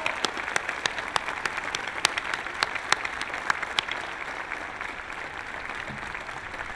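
Audience applauding, with sharp single claps standing out above the dense clapping; the applause thins a little in the second half.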